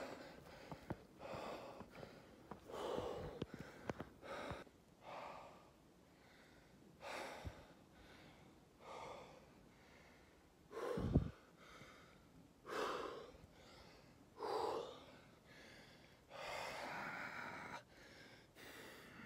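A man breathing hard from running, in loud gasping breaths about every one to two seconds, with one longer breath near the end. A low thump on the microphone about eleven seconds in is the loudest sound.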